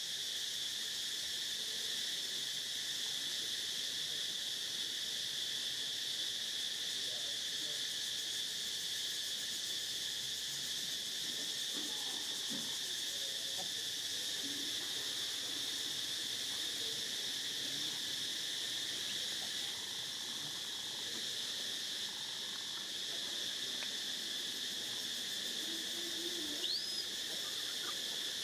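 Steady, high-pitched insect chorus of continuous buzzing and shrilling with no pauses. A brief rising chirp sounds near the end.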